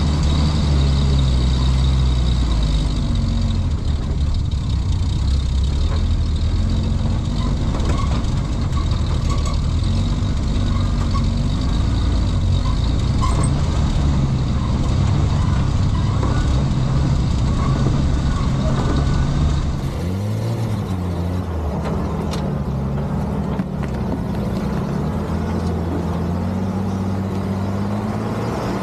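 Dodge M37 wrecker's straight-six engine running at low speed under load as the truck crawls over rock, its pitch drifting gently up and down. About two-thirds of the way through, the sound drops and thins as the engine is heard from outside the truck.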